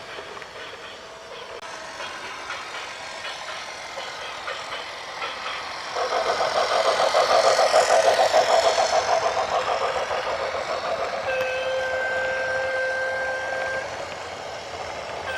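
A heavy vehicle passing, with a pulsing engine-and-wheel noise that grows loud about six seconds in and fades after about nine. It is followed by a long, steady horn blast about eleven seconds in.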